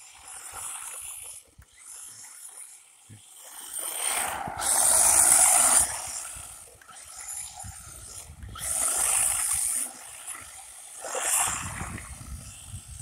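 Electric 1/16 Cheerwing 4x4 RC short-course truck driving, with rushing bursts of tyre and drivetrain noise as it accelerates and slides. The loudest burst comes about four to six seconds in, with shorter ones near nine and eleven seconds. A low rumble of wind on the microphone runs underneath.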